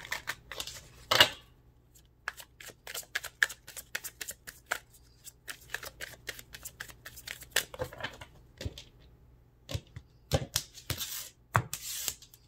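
A deck of tarot cards being shuffled by hand: quick, irregular card flicks and snaps, with longer rustling runs near the end.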